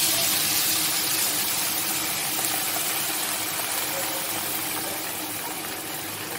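Water poured from a steel kettle into a hot frying pan, hissing and sizzling as it hits the hot pan and food. The hiss is loudest at first and eases off gradually as the pan fills and the liquid bubbles.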